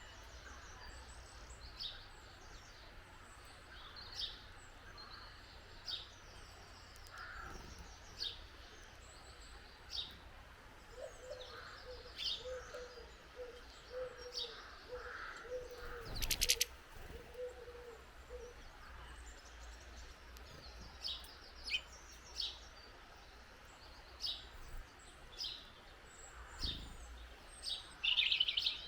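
Small garden birds at a feeder giving short, high chirps every second or so. About eleven to eighteen seconds in, a run of low repeated notes joins them, and a single sharp click sounds about halfway through.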